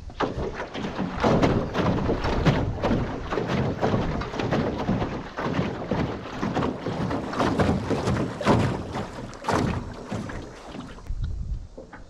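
Small boat on the water: uneven splashing and rustling noise with wind buffeting the microphone, with no steady motor tone.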